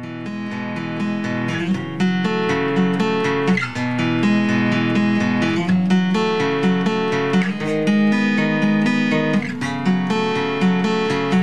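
Background music: acoustic guitar strumming chords, changing chord about every two seconds.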